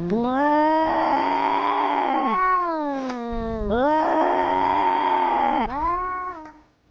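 Cat yowling: a string of long, loud wailing calls that rise and fall in pitch, ending abruptly just before the end.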